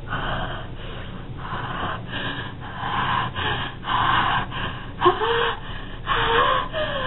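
A person's breathy open-mouthed gasps in a rapid string, one every half second to second. A couple of short voiced whimpers curve up in pitch near the end.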